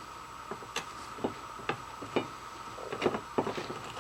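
Light, irregular clicks and taps of small polished metal switch plates being handled and wiped, about two a second, over a faint steady hum.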